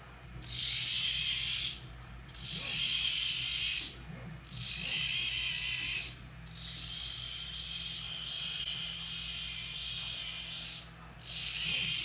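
SG90 micro servo motors of a small 3D-printed robot bulldozer running in five bursts, each about one to four seconds long, with a high-pitched gear whir.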